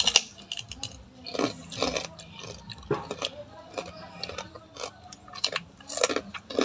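A person chewing and biting into crunchy food, with irregular crunches and smacks.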